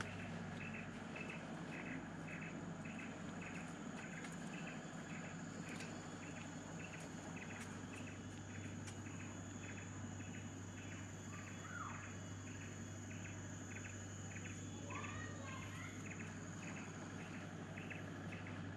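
Insects in the surrounding forest chirping in an even pulse of about two chirps a second, over a steady high-pitched insect whine and a low steady hum. A bird gives brief calls about two-thirds of the way through and again a few seconds later.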